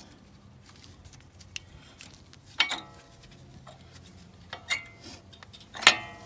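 Three sharp metallic clinks with brief ringing as the Lexus NX200T's worn front brake pads and their steel clips are pulled out of the caliper bracket, the loudest near the end.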